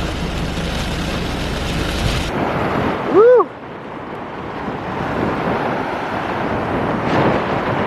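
Strong wind buffeting the microphone, cut off abruptly a couple of seconds in by a steady rush of surf and wind. Soon after the cut comes one short pitched sound that rises and falls, the loudest moment.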